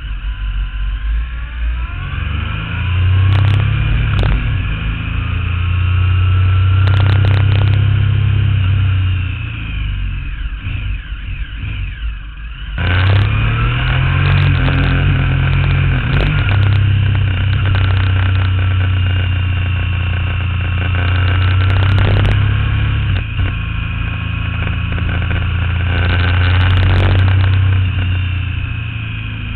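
Motorcycle engine heard from the riding bike, pulling through bends with its pitch rising. It eases off around ten seconds in, then picks up again sharply just before thirteen seconds. A few brief thumps sound over it.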